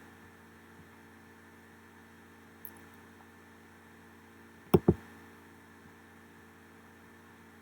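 Two sharp clicks in quick succession a little past the middle, a mouse double-click, over a steady electrical hum; a fainter single click comes about two and a half seconds in.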